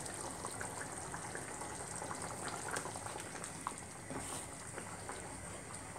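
Thick coconut-paste curry gravy boiling in a pan, bubbling steadily with small pops, while it is stirred with a spoon and spatula.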